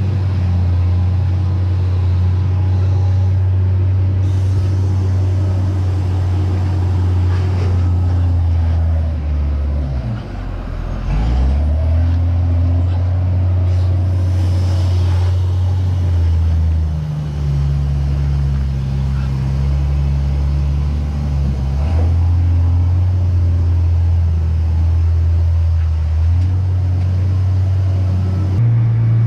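An engine running steadily with a low hum. About ten seconds in it slows briefly and picks up again, and it runs at a higher pitch for a few seconds in the second half.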